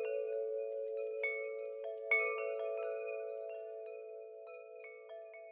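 Wind chimes striking irregular high notes that ring and decay, over a steady hum of held lower tones; the sound fades out gradually toward the end.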